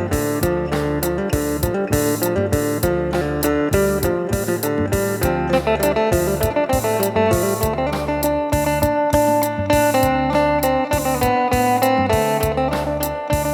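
Phin, the Isan plucked lute, playing a lively melody over a steady percussion beat.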